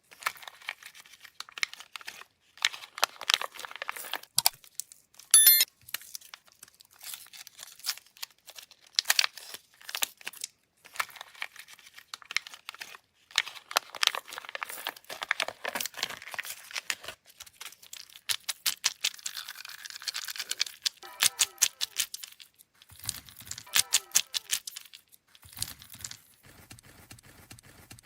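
Candy wrappers and packaging being crinkled and torn open, a dense run of irregular crackles, with a brief high squeak about five and a half seconds in.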